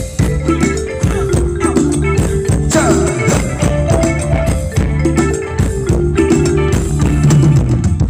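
Live band playing Thai rumwong dance music over a PA: an instrumental passage with a steady beat and a melody line.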